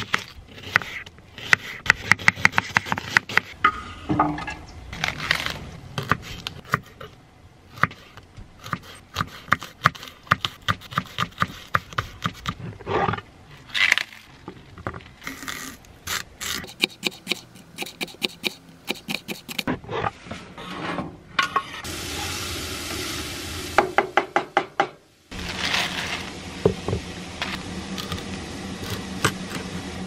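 Kitchen knife chopping onion, celery and carrot on a wooden cutting board: runs of quick, sharp chops with short pauses between. A steady hiss comes in for a few seconds about two-thirds of the way through, and a low steady hum sits under the chopping near the end.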